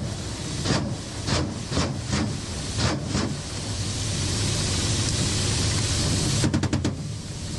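Steady cockpit drone of a Ka-52 attack helicopter's turboshaft engines and coaxial rotors in low-level flight, with a hiss of airflow. Sharp bangs cut through it: about eight spread over the first three seconds, then a quick burst of about six close together near the end.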